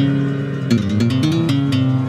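Roland Juno-Di synthesizer playing a plucked-string, guitar-like patch: a bass line stepping up and down under held chord notes, with fresh notes struck about two-thirds of a second in.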